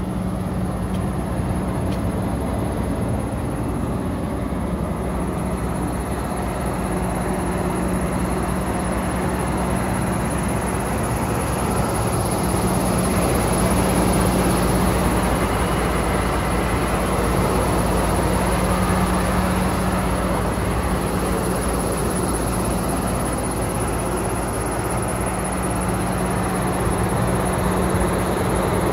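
Cummins ISB six-cylinder diesel engine of a 2015 International 4300 dump truck idling steadily, a little louder about halfway through.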